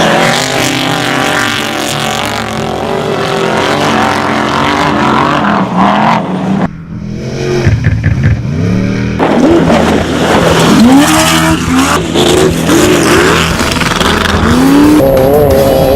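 Off-road race vehicle engines revving, rising and falling in pitch as they accelerate, with a steady music-like bed underneath; the sound goes briefly muffled for about two seconds near the middle.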